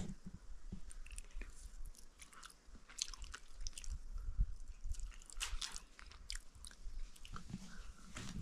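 Chewing with irregular soft clicks and mouth smacks: someone eating the cooked white pumpkin.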